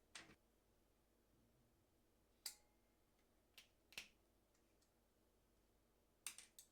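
Faint, scattered sharp clicks, about six of them: wire-stripping pliers being worked on an electrical wire, their jaws and handles clicking as they close.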